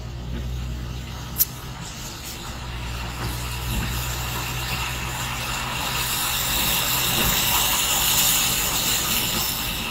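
Car interior noise: a steady low engine and road hum. A sharp click comes about a second and a half in, and a rushing hiss swells from about six seconds in.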